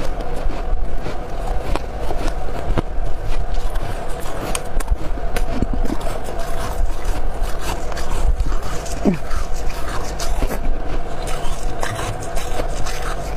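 Close-up crunching and scraping of freezer frost and hard ice, many short irregular crunches over a steady hum.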